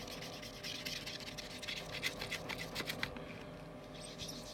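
Melamine sponge scrubbing polariser glue residue off the glass of an iPhone LCD panel: a faint, scratchy rubbing in quick short strokes that eases off near the end.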